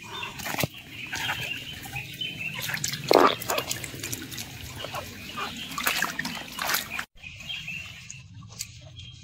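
A ferret splashing and paddling through shallow creek water and mud, with trickling water and scattered splashes and clicks. A short, loud sound stands out about three seconds in.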